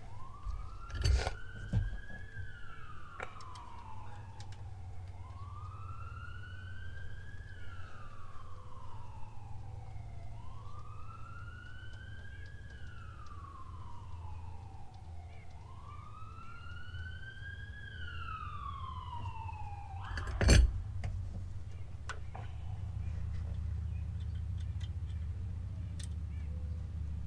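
An emergency-vehicle siren wailing, rising and falling slowly about every five seconds, ending about twenty seconds in. A few sharp knocks, the loudest just as the siren stops, over a low steady rumble.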